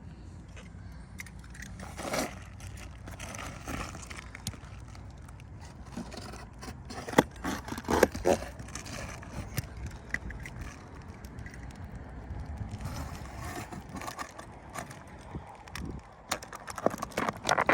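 Scraping and crackling as roofing shingles and felt are pried up and pulled off the roof decking, with several sharp knocks about seven to eight seconds in and another cluster near the end.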